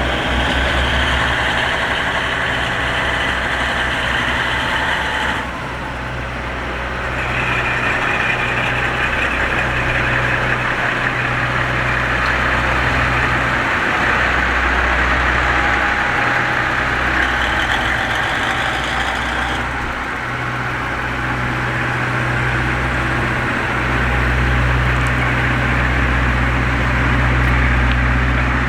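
A heavy engine idling: a steady low hum under a constant hiss, with no clear rhythm.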